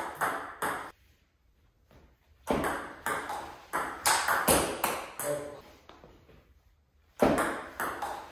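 Table tennis rally: the plastic ball clicking sharply off rackets faced with Hurricane 3 rubber and off the table, about two hits a second, each with a short echo. The rally stops for about a second and a half soon after the start and again briefly near the end.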